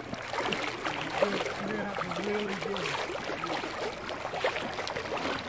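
River water flowing and splashing around the legs of anglers wading, with a man's voice calling out briefly in the first half.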